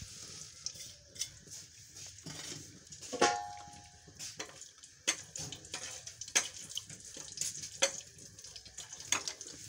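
Cumin seeds and whole round red chillies crackling in hot ghee in a small steel pan: a steady sizzle with many irregular sharp pops as the tempering (tadka) fries. One louder clink about three seconds in.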